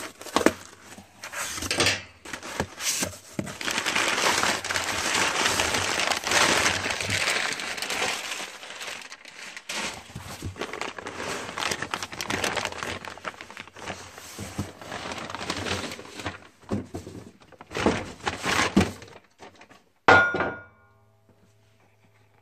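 Cardboard box being torn open, with stapled flaps pried out with pliers, then a plastic bag crinkling as a nitrous bottle is pulled from it. Near the end, a single clunk with a short metallic ring as the bottle is set down on the bench.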